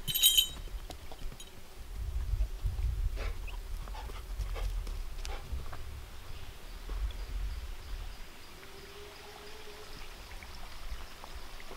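Footsteps on a dirt forest trail, a few scattered light steps, over a low rumble on the microphone from the camera being carried. A brief metallic jingle comes right at the start.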